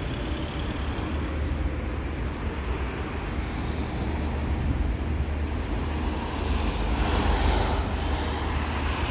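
Steady low engine rumble under a hiss of outdoor traffic noise, swelling louder about seven seconds in.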